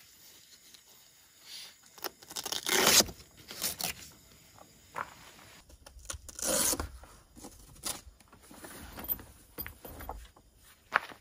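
Fabric cover of a roll-up vehicle awning being opened on a roof rack: short bursts of zipping, ripping and scraping as the bag is unzipped and its Velcro straps are pulled apart. The loudest rasp comes about two to three seconds in, another about six and a half seconds in, and there is a sharp click near the end.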